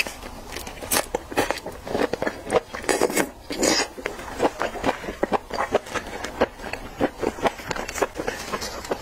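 Close-miked chewing of raw shrimp sashimi: a rapid, uneven run of wet mouth smacks and soft clicks, with a couple of brief slurping bursts about three seconds in.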